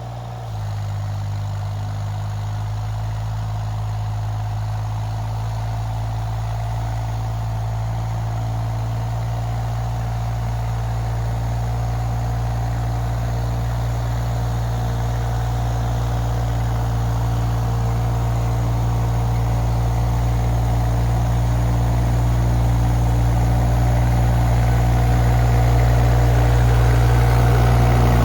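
Small mini excavator engine running steadily as the machine travels, its low hum slowly growing louder.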